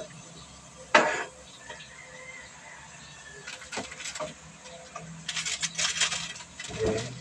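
A spatula stirring and scraping shredded stingray and moringa leaves in a metal cooking pan. There is a sharp knock about a second in, then scattered clicks and a run of clattering scrapes in the second half.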